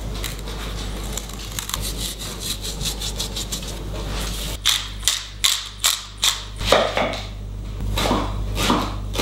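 Hands working seasoned pork loin and onion in a bowl for a shashlik marinade: a dense crackling rub at first, then from about four and a half seconds a run of sharp crunchy strokes, about two a second.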